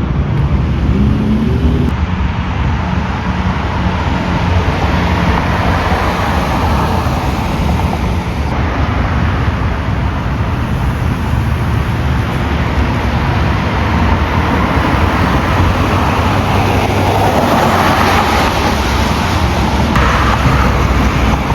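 Steady motor vehicle noise: a low engine rumble under a broad road-traffic hiss.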